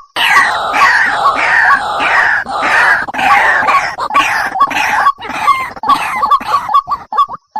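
White-breasted waterhen (dahuk) calling: a loud, dense run of harsh overlapping calls that thins out near the end into short notes repeated several times a second.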